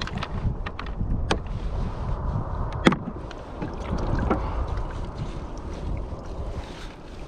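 Water slapping and sloshing against a plastic kayak hull in ocean swell, over a steady low wind rumble on the microphone, with a few sharp knocks; the loudest comes about three seconds in.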